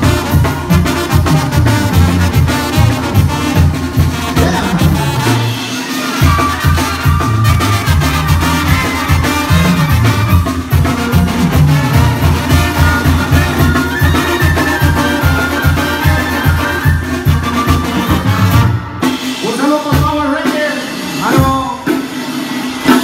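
Mexican banda playing live through a PA system: trumpets, trombones and clarinet over drums and a steady pulsing bass beat. The music thins out briefly near the end.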